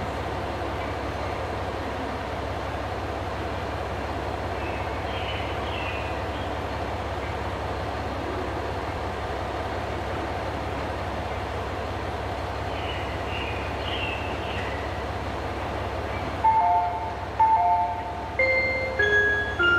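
Steady rumble and hum of a Tosaden Kotsu 1000-series tram rolling slowly toward its stop amid street traffic. Near the end an electronic chime melody starts suddenly, two notes repeating and then a short tune.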